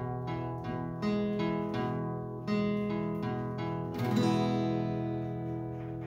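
Guitar music: chords strummed and left ringing, with fresh strums about a second in, midway and a louder one around four seconds.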